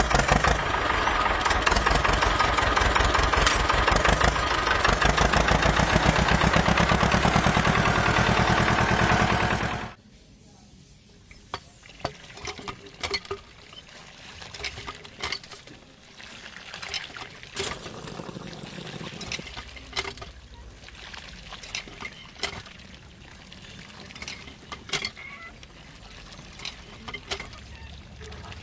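A diesel tractor engine running with a rapid, steady chug, which cuts off abruptly about ten seconds in. After it come quiet, scattered plastic clicks and taps as the handle of a toy hand pump is worked up and down.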